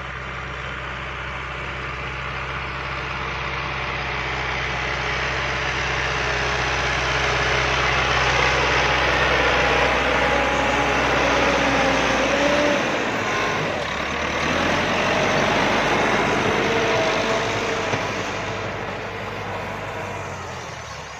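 Tractor engine running as it pulls a wheat seed drill, growing louder as it comes close and then fading as it moves away.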